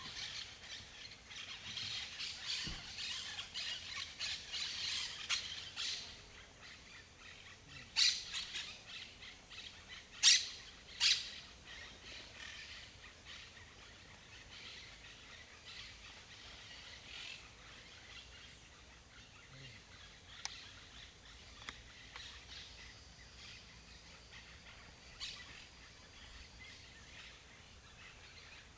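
Birds chirping and calling, busiest in the first six seconds, with three short, sharp, louder sounds at about eight, ten and eleven seconds in, then only a few faint chirps.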